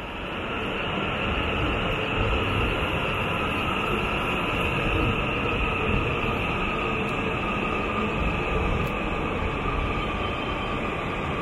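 E5-series Shinkansen trainset moving slowly along the platform: a steady rumble of wheels on rail with a steady high tone running over it.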